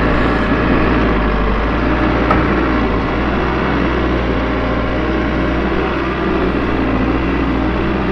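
Caterpillar 416 backhoe loader's diesel engine running steadily while its loader bucket digs feed out of a silage bag.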